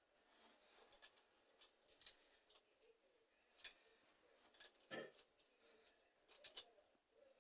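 Faint, scattered clicks and clinks of small hard parts being handled, about five separate knocks spread a second or so apart, the firmest about five seconds in.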